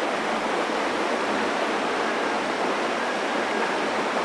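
Steady rush of a rocky stream's running water, an even hiss that does not change.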